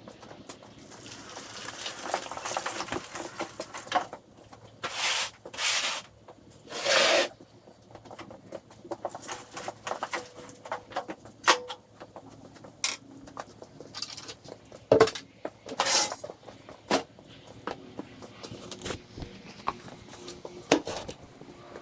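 Irregular clatter of small knocks and clinks, with a few short scraping or brushing noises, from objects being handled and set down.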